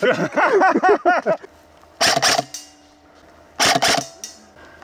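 Two short bursts of fire from a Lancer Tactical M4 Evo airsoft electric gun (AEG), about a second and a half apart, each a quick rattle of shots followed by a brief ringing tone.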